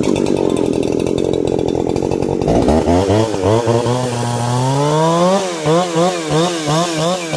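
New G372XP two-stroke chainsaw running in the air, not cutting. It runs steadily for the first couple of seconds, then the revs drop and climb slowly. From about five seconds in, the throttle is blipped up and down about twice a second, as in breaking in a new saw.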